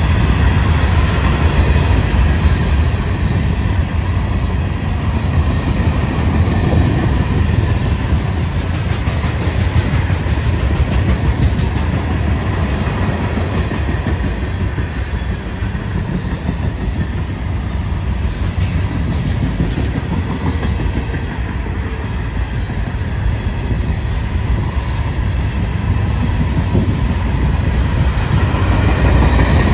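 Florida East Coast freight cars rolling past close by: a loud, steady rumble and clatter of steel wheels on the rails, easing a little midway and building again near the end.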